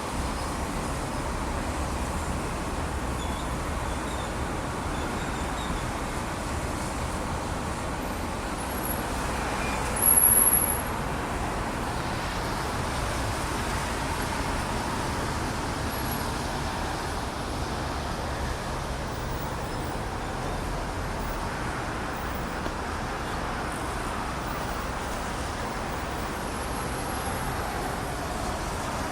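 Steady road traffic in the rain, a continuous hiss of tyres and rain on a wet street. A brief, louder high squeal comes about ten seconds in.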